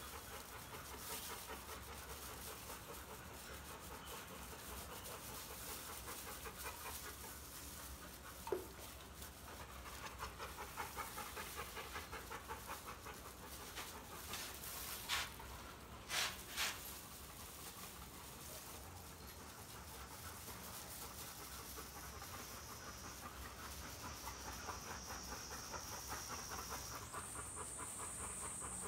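A large brindle mastiff-type dog panting steadily with its tongue out in the summer heat. A few short sharp sounds come about halfway through.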